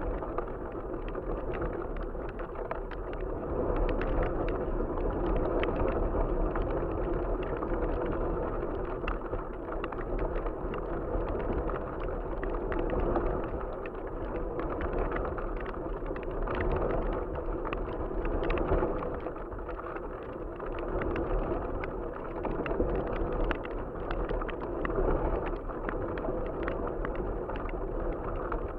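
Wind rushing over a camera carried aloft on a box kite, with the kite's sail and spars fluttering and crackling in many quick clicks as it flies.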